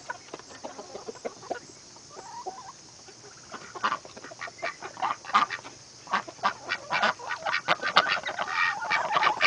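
Mixed flock of chickens and domestic ducks clucking and quacking, many short calls overlapping, busier from about halfway on.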